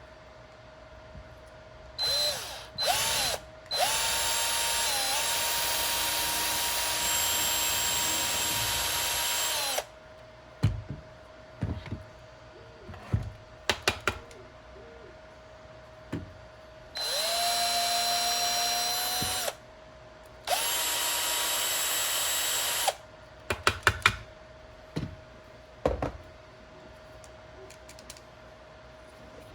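Small electric power tool, a drill or rotary tool, used on a broken squid jig in the course of the hook repair. It is switched on in two short blips, then runs steadily for about six seconds, and later runs twice more for two to three seconds each, with a steady whine that spins up at each start. Light clicks and taps from handling come between the runs.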